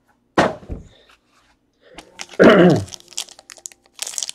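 A man's short breathy burst, then a wordless vocal sound that falls in pitch, with faint ticks from a trading card being handled.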